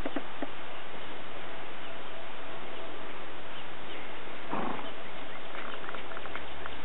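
Thoroughbred horse giving one short snort about two-thirds of the way through, over a steady hiss, with a few light clicks near the end.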